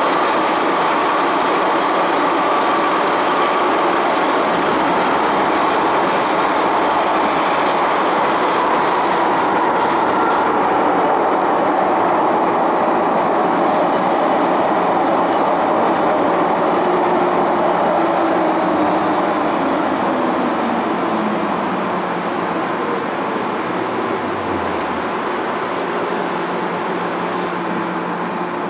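MTR M-Train electric multiple unit running through a tunnel and then braking into a station, heard from inside the car. Its motor tone falls in pitch and the running noise eases in the second half as it slows to a stop.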